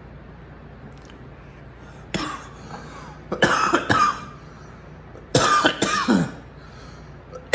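A man coughing: one short cough about two seconds in, then two longer, louder coughing bouts.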